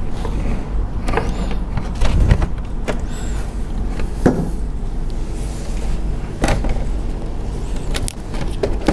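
Plastic clicks and knocks as the back cover of a Lenovo IdeaCentre all-in-one PC is lifted off and handled, over a steady low hum.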